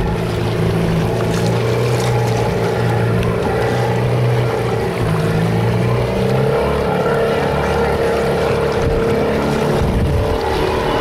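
A boat's engine running steadily underway: a low drone with a steady higher hum, over a constant rush of wind and water.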